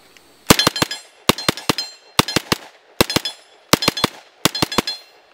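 M1A1 Thompson submachine gun in .45 ACP fired in six short bursts of three or four rapid shots each, the first about half a second in.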